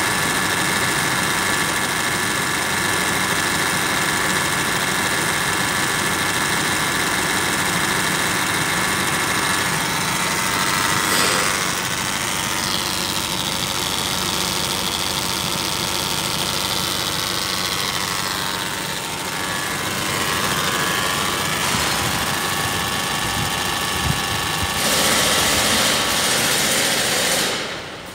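Nissan Pathfinder 2.5-litre four-cylinder turbodiesel engine idling steadily, heard close up from the open engine bay, with a louder stretch near the end.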